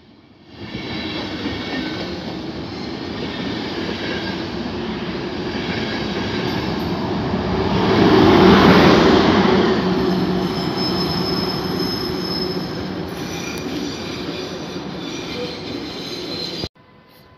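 Intercity train passing close by at speed, its coaches rumbling and clattering on the rails. The noise swells to its loudest as the electric locomotive goes past about halfway through, then thin high wheel squeal runs on under the passing train until the sound cuts off abruptly near the end.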